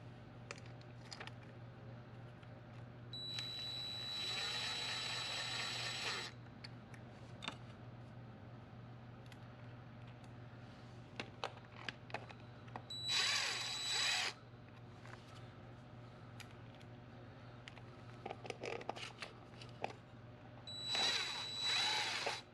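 Power drill spinning bolts down on a DL501 transmission's clutch in three runs, a longer one of about three seconds and two shorter ones, each stopped as the bolt head touches the faceplate. Small clicks and taps in between.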